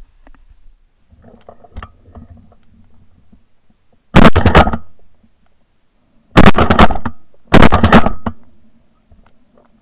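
Three shotgun shots at flushed chukar partridge, the first about four seconds in and the last two about a second apart, each trailing off over about half a second.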